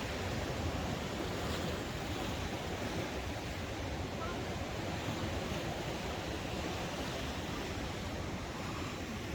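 Ocean surf washing with wind: a steady, even rush of noise.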